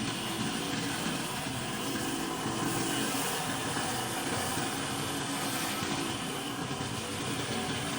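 Pressure washing rig's engine running steadily, with a hiss of water spraying throughout.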